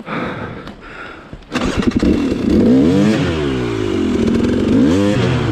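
A 300 cc two-stroke dirt bike engine comes in loudly about a second and a half in. It then revs up and down twice as the rider works the throttle.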